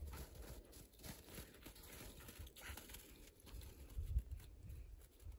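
Faint, irregular crunching of footsteps in snow, with a slightly louder crunch about four seconds in.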